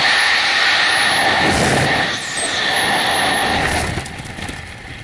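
Loud, steady rush of freefall wind on the skydiver's camera microphone. It drops sharply about four seconds in as the parachute has opened and the fall slows under canopy, leaving quieter air noise with a few faint clicks.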